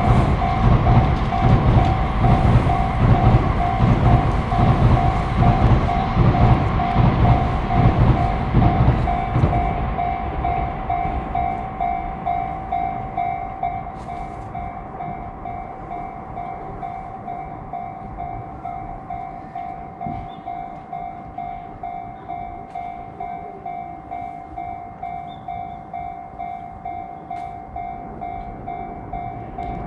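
Japanese level-crossing warning bell ringing in a steady repeating clang while a train runs past; the train's rumble dies away after about ten seconds and the bell keeps ringing on its own.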